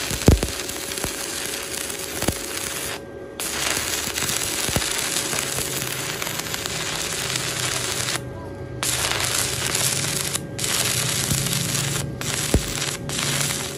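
Stick-welding arc crackling and sizzling as a flux-coated electrode lays a bead on an iron rod. The arc breaks off a few times, briefly about three seconds in, for about half a second around eight seconds in, and for short moments near the end, with a few sharp clicks along the way.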